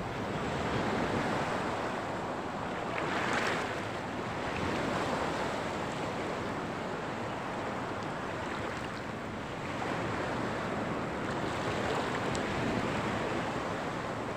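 Sea water washing and wind blowing over the microphone: a steady rushing noise that swells and eases now and then.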